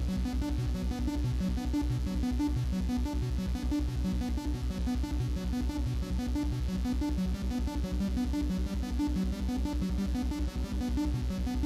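Background electronic music: a synthesizer and keyboard tune over a steady, even beat.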